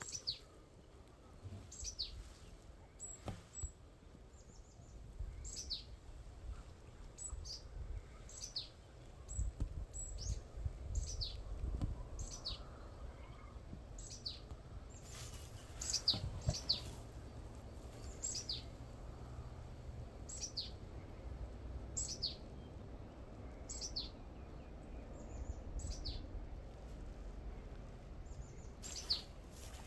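A bird repeating a short, high call that sweeps downward, about once every second or so, over a low rumble.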